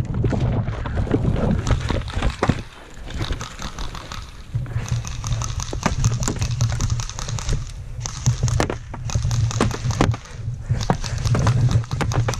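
An airsoft skirmish: a rapid, irregular run of sharp clicks and snaps from airsoft guns firing and BBs striking cardboard boxes, getting busier about halfway through. Cardboard rustles under a steady low rumble.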